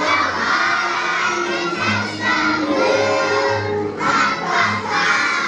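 A group of preschool children singing a song together, with accompaniment music under their voices.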